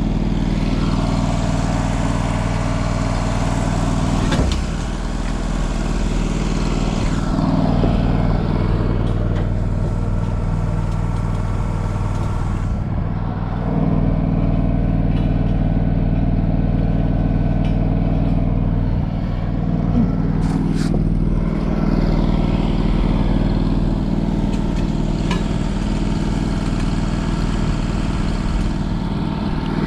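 An engine-driven welding machine running steadily. In two long stretches a crackling hiss of stick welding sits over the engine.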